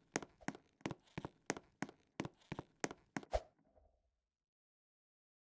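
A steady run of sharp taps or knocks, about three a second, ending about three and a half seconds in with one louder, heavier knock; then dead silence.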